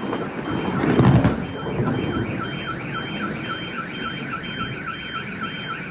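An electronic alarm wailing in a repeating warble, about two sweeps a second, over loud rumbling noise, with a loud burst about a second in.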